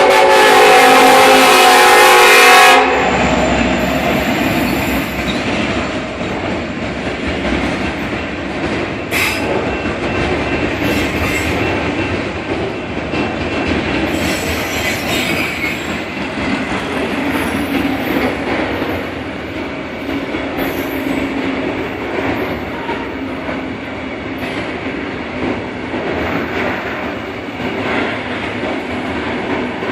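Diesel locomotive horn on a Ferromex EMD SD70ACe sounding a loud chord that cuts off about three seconds in. The freight cars of the train then roll past steadily for the rest of the time.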